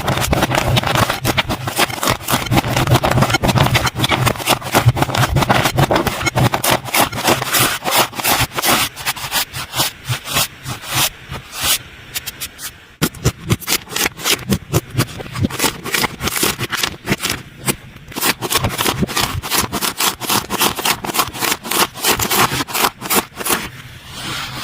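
Slime being squished and kneaded by hand, a rapid run of sticky clicks and pops that keeps going, easing off briefly about halfway through.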